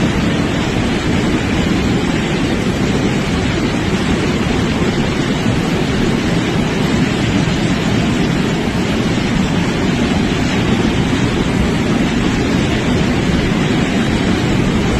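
Rushing floodwater: a loud, steady wash of noise, heaviest in the low range, without a break.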